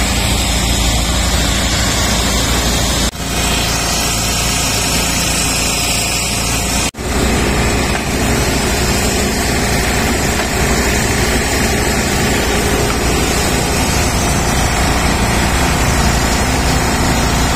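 Heavy truck diesel engine running steadily, as from the truck-mounted concrete boom pump and cranes working the site. The sound drops out abruptly for a moment twice, about three and seven seconds in.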